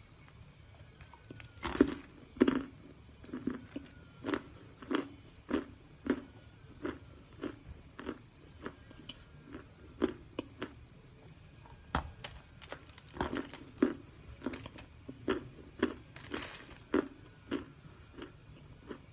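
Crunchy dry edible clay (teen khawa) being bitten and chewed close to the microphone: a steady run of sharp crunches about twice a second, the loudest a couple of seconds in.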